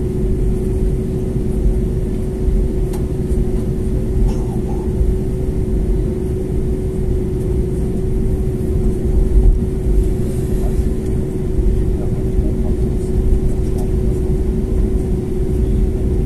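Cabin noise of an Airbus A320neo taxiing at low thrust, heard from a window seat beside the wing: the engines run with a steady hum holding one constant tone over a low, uneven rumble.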